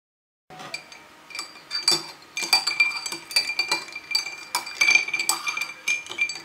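A metal spoon stirring iced milk tea in a glass, clinking rapidly and irregularly against the glass and the ice, with the glass ringing between strikes. It starts about half a second in.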